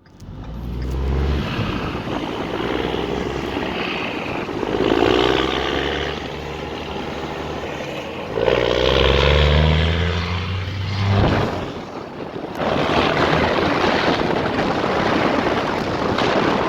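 Straight-piped Detroit Diesel Series 60 14-litre inline-six diesel, tuned to about 600 hp, revving up several times, its pitch climbing and dropping back between pulls.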